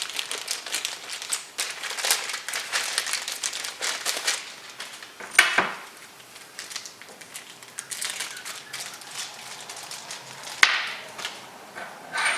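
A small plastic bag crinkling and rustling as it is opened and handled. Then three sharp clicks spread over the next several seconds.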